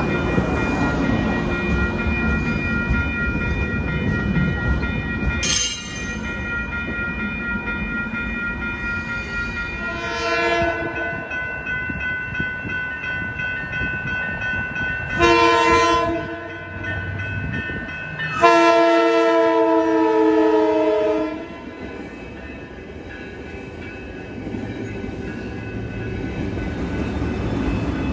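COASTER commuter train rumbling past, then its horn sounding a chord of several notes: two short blasts about ten and fifteen seconds in and a long blast of about three seconds.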